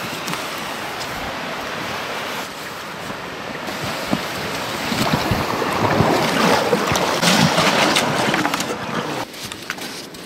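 Steady rushing of a flowing river, swelling louder for a few seconds in the middle, then falling away suddenly near the end.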